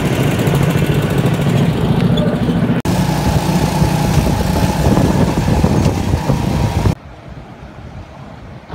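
Go-kart engine running loud and steady as the kart is driven, with a brief break about three seconds in. About seven seconds in it cuts off abruptly to a much quieter outdoor background.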